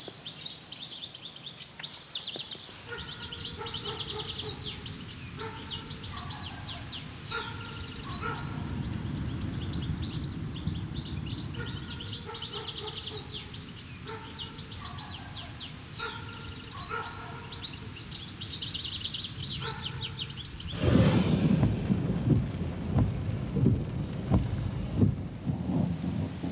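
Birds chirping and trilling over a low hiss. A few seconds before the end a sudden thunderclap breaks in, followed by rumbling thunder and rain.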